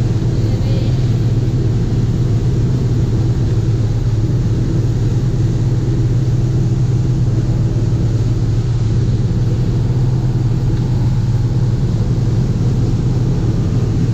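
A boat's engine running steadily, a constant low drone with no change in speed.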